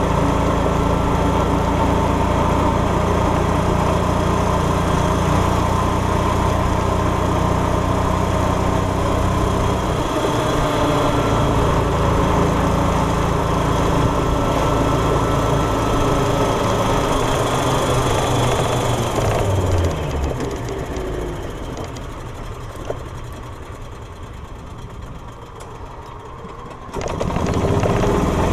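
Small petrol engine of a golf cart running steadily as the cart drives along. About two-thirds through the engine drops away, leaving a quieter stretch, then it comes back abruptly near the end.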